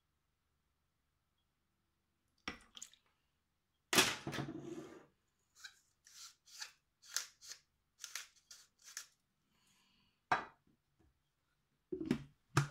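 A hand-twisted chili grinder grinding over a steel mixing bowl around the middle, about eight quick strokes in a row. Before it a few knocks and clinks, the loudest with a short ring, as a spoon and jars are handled at the bowl; near the end the lid of the Monsieur Cuisine plus mixing bowl is set on with a clunk.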